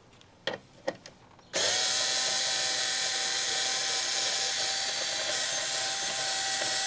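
Ryobi 4V cordless screwdriver running on its slow 200 RPM setting, backing out a number-plate screw: a steady motor whine with a constant tone and gear buzz, starting about a second and a half in after a couple of light clicks.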